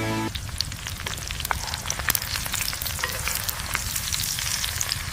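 Campfire crackling, with frequent sharp pops and snaps over a steady hiss.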